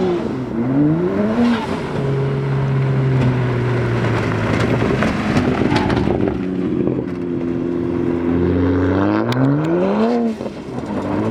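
Car engine revving hard: the pitch climbs quickly a few times, holds at high revs for several seconds, drops, then climbs again twice near the end.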